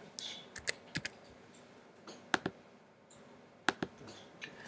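Keystrokes on a computer keyboard: about ten short, sharp clicks at irregular spacing, some in quick pairs.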